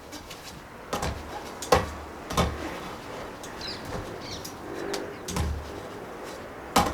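A series of sharp knocks and thuds from a freestyle calisthenics attempt on a pull-up bar, about five in all, the loudest near the end. Faint bird chirps come in around the middle.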